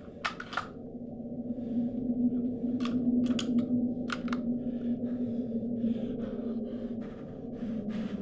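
A long gun being handled, giving a few sharp clicks in the first four seconds. Under them runs a low, steady drone, and uneven, shaky breathing grows louder after the first second or so.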